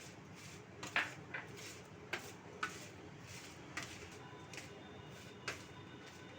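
Salted bitter gourd pieces being washed by hand: irregular short clicks and rustles, about one or two a second, over a low steady hum.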